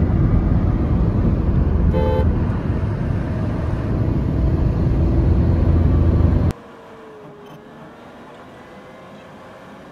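Loud, low road and wind noise from a moving vehicle, with a short horn toot about two seconds in. Past the middle the noise cuts off abruptly to a much quieter hum with a faint wavering tone.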